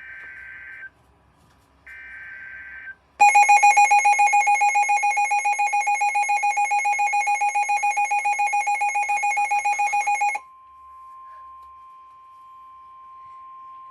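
NOAA Weather Radio alert on a Midland WR400. First come two roughly one-second bursts of rasping SAME digital header tones. A loud, rapidly pulsing electronic alarm from the radio follows for about seven seconds, then cuts off to the broadcast's steady 1050 Hz warning alarm tone.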